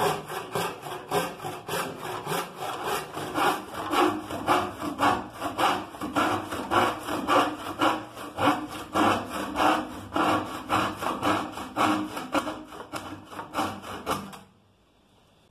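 Stanley general-purpose hand saw cutting through a plywood board in steady, rhythmic back-and-forth strokes, two or three a second. The sawing stops near the end.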